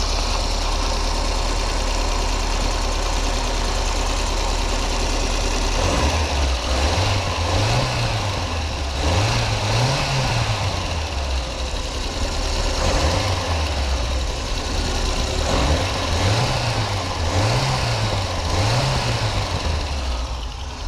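VAZ 2108/2109 1.3-litre eight-valve four-cylinder engine running with a newly fitted timing-belt tensioner roller. It idles steadily, then from about six seconds in is revved up and down several times. The owner finds it much quieter, with the under-bonnet whistle that varied with engine speed gone.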